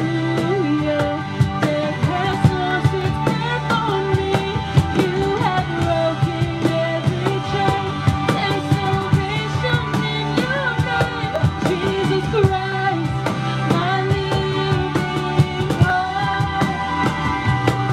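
A woman singing a worship song into a microphone, with a cajón played by hand keeping a steady beat underneath.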